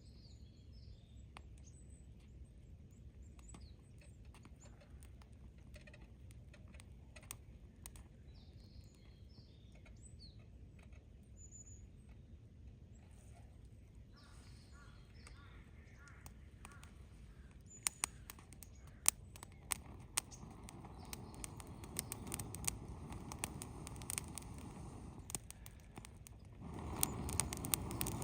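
Campfire crackling, with sharp pops coming more and more often through the second half. The fire gets suddenly louder near the end. Small birds chirp in the first half.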